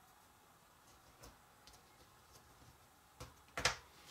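A few light clicks and taps of jigsaw puzzle pieces being handled and set down on a table, the loudest two near the end.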